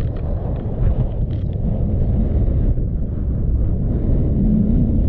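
Wind buffeting the microphone: a steady low rumble, with a few faint ticks in the first second or so.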